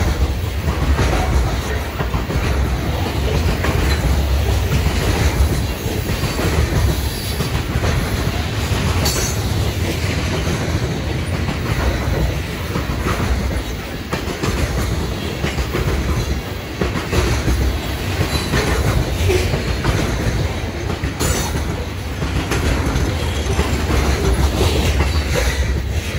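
Freight train of covered hopper cars rolling past on steel rails: a steady heavy rumble with the clack of wheels over rail joints.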